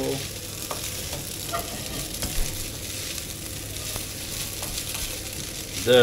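Spaghetti sizzling as it fries in a frying pan while being stirred with a wooden spatula, a steady sizzle with a few light clicks of the spatula against the pan.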